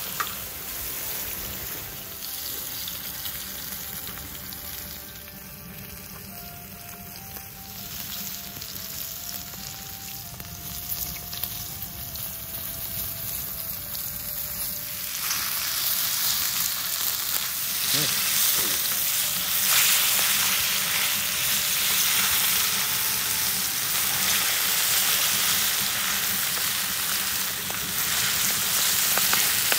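Bone-in veal rib chops sizzling in oil on a saj, a hot iron griddle plate over a wood fire. The sizzle grows clearly louder and brighter about halfway through.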